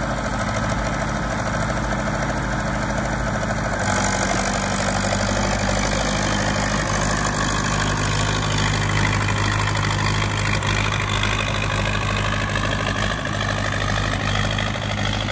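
An engine running steadily, its tone shifting about four seconds in.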